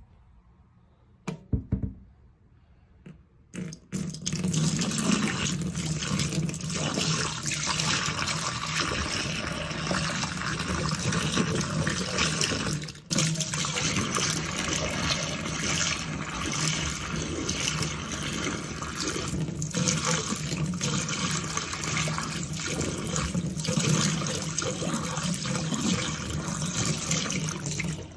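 Water poured in a steady stream into a stainless steel sink and down its drain, with a brief break about halfway through. A few knocks come before the pour starts, about four seconds in.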